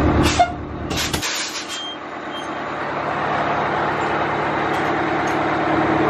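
1993 Titan fire truck's engine running with a low rumble and a few clicks, cutting off abruptly about a second in as it is shut down. A steady rushing hiss carries on and slowly grows louder through the rest.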